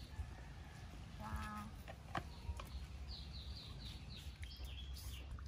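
A small bird chirping in the background: a quick run of short, high, falling chirps about three seconds in. Earlier there is a brief pitched call and a single sharp click.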